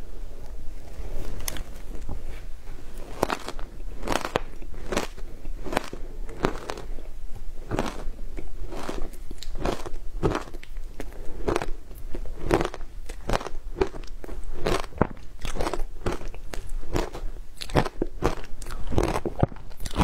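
Frozen matcha ice crunched and chewed close to the microphone: a dense, irregular run of crisp crunches, a few each second.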